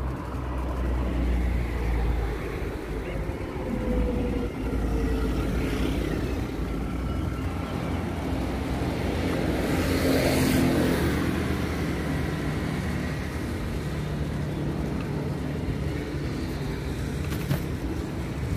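Street traffic with a steady low rumble; a vehicle passes close by about halfway through, swelling and fading.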